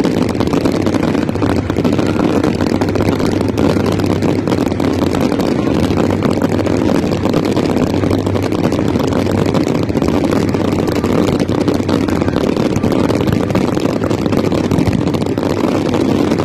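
Fireworks barrage: many shells and ground effects going off at once, merging into a loud, continuous rumble of overlapping bangs and crackles that holds steady throughout.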